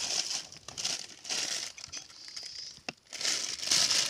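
Dry fallen leaves and twigs rustling and crackling in three bursts as someone moves through the leaf litter, with one sharp click about three seconds in.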